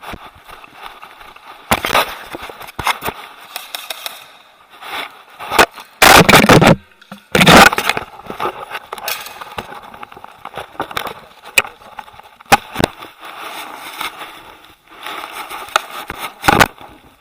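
Scraping and rustling against a head-mounted camera's microphone as an airsoft player moves, broken by scattered sharp clicks. Two loud, harsh bursts come about six and seven and a half seconds in.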